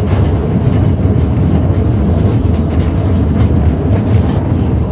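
Streetcar running along its track, heard from an open side window: a steady low rumble of the moving car with a few faint clicks.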